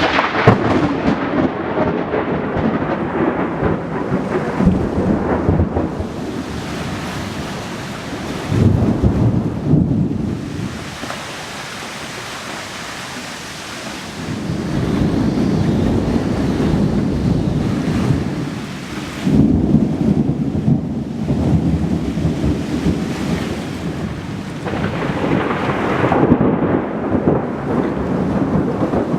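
Thunderstorm: thunder rumbling in several long rolls over steady rain, easing off briefly about halfway through.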